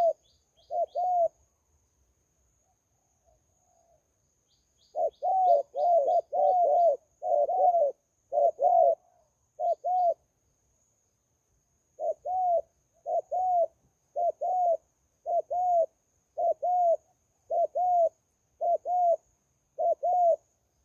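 Zebra doves cooing: short arched coo notes repeated in quick runs, with gaps of a second or two between runs. A few faint high chirps come in now and then, over a faint steady high-pitched tone.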